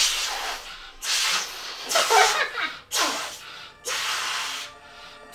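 People blowing hard into latex balloons to inflate them: about five forceful breathy exhales, roughly one a second, with short breaths taken in between.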